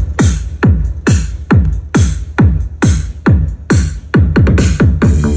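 Vietnamese club dance music (nhạc sàn) played loud through a powered mixer and a pair of 30 cm loudspeakers: a heavy kick drum with a falling pitch about twice a second over deep bass, with a synth line coming in near the end.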